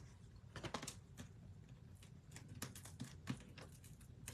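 Faint scattered clicks and light rustling of cardstock being handled: a die-cut paper piece with foam dimensionals is lifted, positioned and pressed onto a card front.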